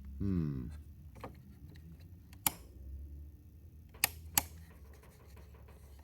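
Three sharp mechanical clicks from a Teletype machine as its switches and mechanism are worked, the last two close together, over a steady low hum.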